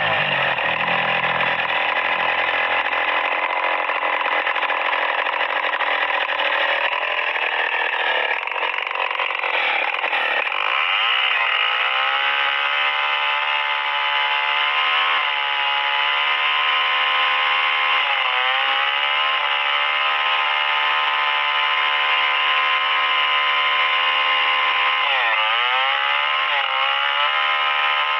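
STIHL 070 two-stroke chainsaw running at full throttle while ripping a hardwood log lengthwise, a steady high engine note. The note sags briefly twice, about two-thirds of the way through and near the end, as the chain loads up in the cut and recovers.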